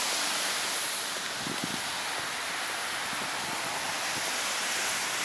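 Steady rush of city road traffic in the background.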